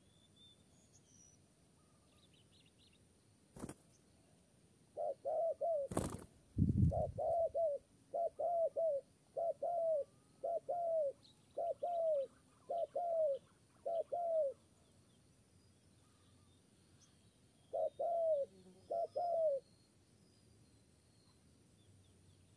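Spotted dove cooing: a long series of short, repeated coo notes, first in twos and threes and then about one every half second, pausing and then returning briefly for a few notes. A single sharp knock sounds about six seconds in, and faint high chirps of small birds are heard now and then.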